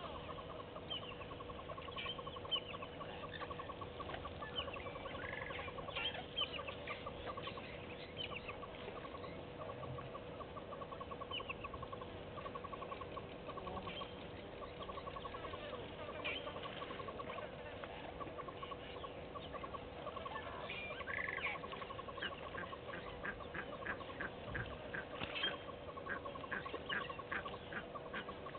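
Wild birds calling: many short, high calls over a fast, steady trill that runs on and off, with a faint steady hum underneath.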